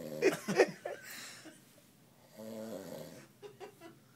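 A man snoring in his sleep: one drawn-out snore beginning about two and a half seconds in, with shorter, louder sounds in the first second.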